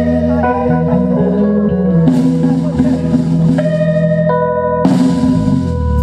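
Live band playing: sustained guitar chords over bass and drum kit, the chords changing several times, with a cymbal crash about two seconds in and another near five seconds.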